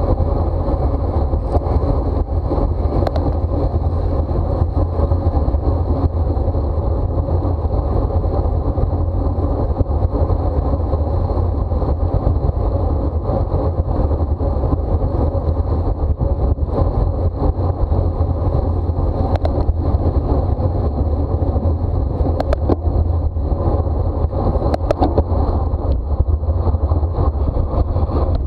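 Steady wind rush on a bicycle-mounted camera's microphone while riding at race speed, with a deep rumble underneath and a few brief clicks near the end.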